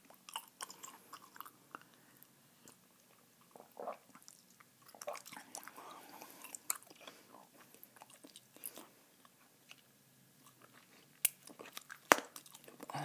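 Close-up chewing of a large wad of Bazooka bubble gum (three pieces at once): irregular wet smacks and clicks of the mouth working the gum, with two sharper, louder snaps near the end.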